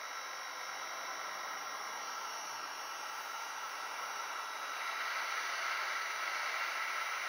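Hot-air gun blowing a steady hiss of air, growing louder about two-thirds of the way in as the nozzle is brought down over the foil-shielded laptop motherboard to heat it.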